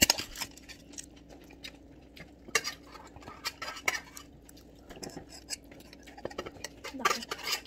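Metal spoon, fork and chopsticks clinking and scraping against stainless steel bowls during a meal, in scattered irregular clicks.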